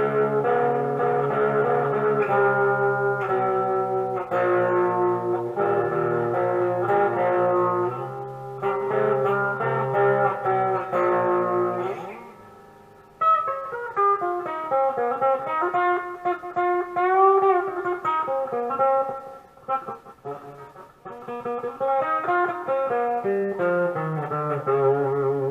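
Modded Monoprice Mini Cali electric guitar on the back coil of its humbucker through overdrive: strummed chords for about twelve seconds, then after a brief gap a lead line with string bends.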